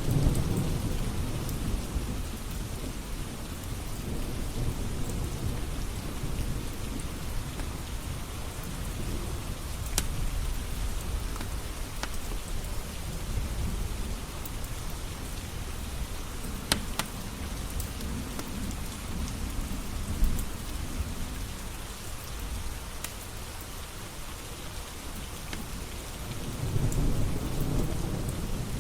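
Steady rain with thunder rumbling low at the start and again near the end, and a few sharp pops from a wood fire crackling in a fireplace.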